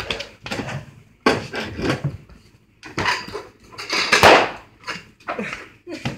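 Shaving-cream-filled balloons being popped by people sitting down hard on them: several sharp, irregular pops and bangs with scuffling between them, the loudest about four seconds in.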